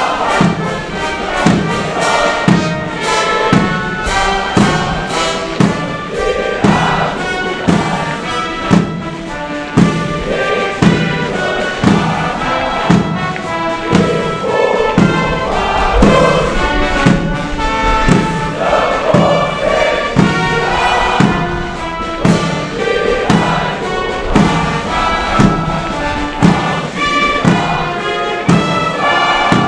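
Brass band playing a march, with a steady bass-drum beat.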